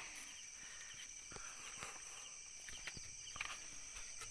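Steady high-pitched chirring of crickets, with a few soft knocks scattered through it.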